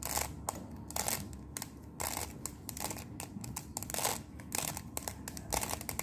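Plastic 3x3 Rubik's cube being turned quickly by hand: an irregular run of sharp clicks and clacks, several a second, as its layers rotate.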